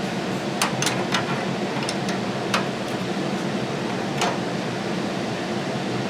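A few sharp metallic clinks of a wrench working on the half-inch bolts of an old washing machine's rear arm mount, spaced irregularly over the first few seconds, over a steady fan-like hum.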